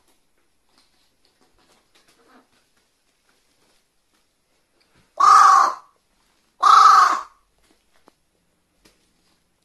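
Carrion crow giving two loud caws about a second and a half apart.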